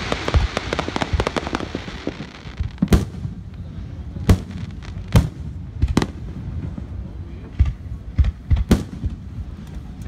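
Aerial firework shells bursting in a string of sharp booms, about half a dozen loud ones among smaller pops. A crackling hiss of glittering stars fills the first second or so.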